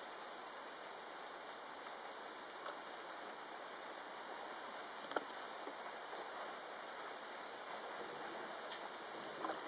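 Steady soft hiss of water moving past a small boat gliding on a calm rainforest canal, with no engine heard. There is a brief crackle right at the start and a single sharp click about five seconds in.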